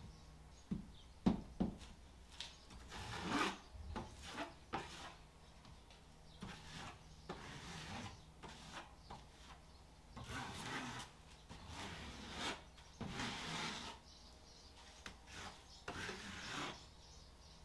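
Scraping and rubbing strokes of a hand tool worked against a surface, coming irregularly, with a few sharp knocks about a second in.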